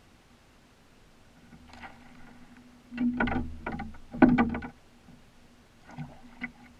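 Splashing and knocks against the side of a wooden cedar-strip canoe as a hooked fish thrashes at the surface beside the hull, in a few bursts, the loudest about three and four seconds in. A faint steady hum runs underneath.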